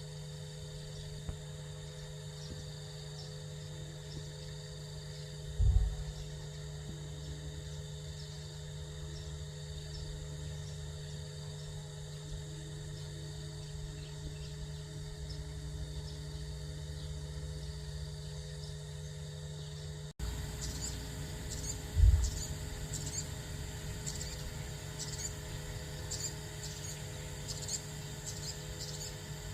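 Outdoor nature ambience of insects trilling steadily over a low hum. After a cut about twenty seconds in, short high chirps come in. Two dull low thumps stand out, about six seconds in and just after twenty-two seconds.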